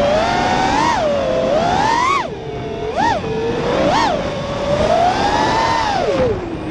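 FPV quadcopter's brushless motors and propellers whining as heard from the onboard camera, the pitch jumping up in four quick throttle punches about a second apart. A longer swell follows, then the pitch drops sharply as the throttle is cut shortly before the end.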